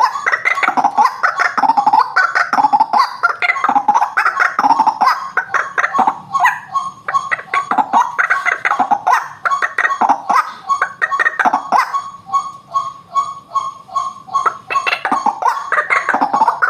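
White-breasted waterhens calling, a rapid run of repeated harsh croaking notes with no break, as used in a bird-luring recording.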